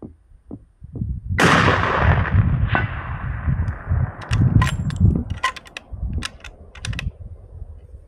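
A 300 PRC rifle firing one shot about a second and a half in, the report rolling away over several seconds. A fainter crack comes about a second later, then a quick run of sharp clicks.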